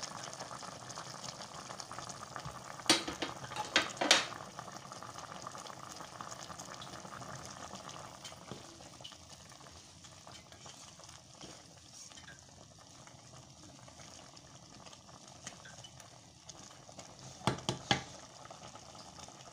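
A pan of soup simmering with a steady bubbling sizzle while a spoon stirs it, with a few sharp knocks of the spoon against the pan about three to four seconds in and again near the end.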